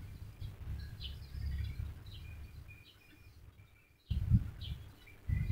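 Birds chirping in the background, short high chirps scattered through, over a low rumble on the microphone that fades away about halfway and comes back suddenly near the end.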